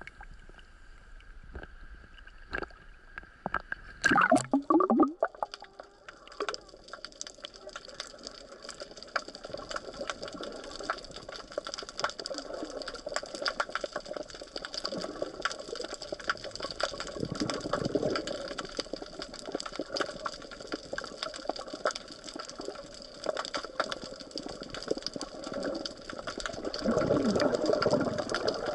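Splash and gurgle as an underwater camera is plunged below the sea surface about four seconds in, then a muffled underwater wash of water noise full of dense crackling clicks, swelling louder twice, near the middle and near the end.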